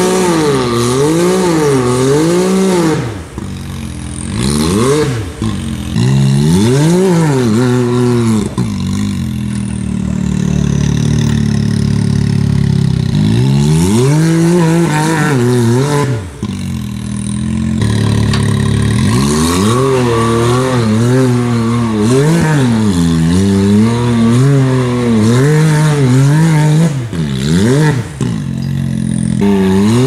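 Side-by-side UTV engine revving up and down over and over, the throttle blipped about once a second, with a steadier stretch of held revs partway through.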